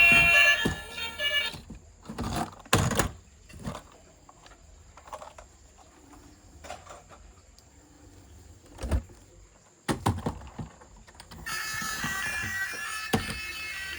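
Background music breaks off about a second and a half in. Then come scattered clicks, knocks and rustles of plastic toys being handled, with the loudest knocks near 3 s and 9 s. The music comes back near the end.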